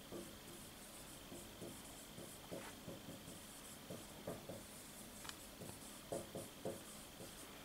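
Marker writing on a whiteboard: a faint string of short, irregular strokes.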